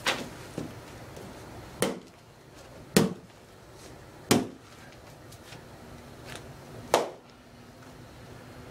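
Homemade wooden war club, cut from an axe handle, striking a wooden chair: five heavy, sharp blows at uneven intervals, with a lighter knock just after the first.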